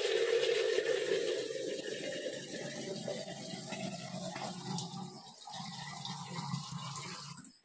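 Water poured from a measuring tin into a large pot of biryani masala, a steady gushing pour that stops abruptly near the end.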